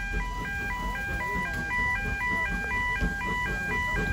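Level crossing warning alarm sounding: an electronic yodel stepping back and forth between a high and a low tone about twice a second, over a low rumble that grows slightly louder toward the end.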